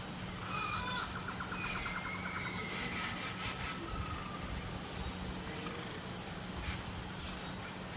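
Forest ambience: birds calling, a rapid trill then a few gliding whistled calls in the first three seconds, over a steady high insect buzz, with a few short sharp chirps later.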